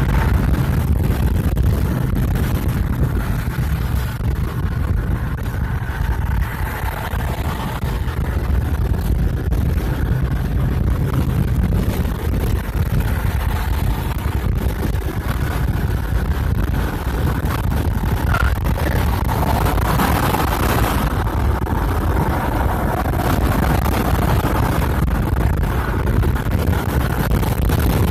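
Steady road and engine noise of a car cruising at highway speed, heard inside the cabin, mostly a low rumble.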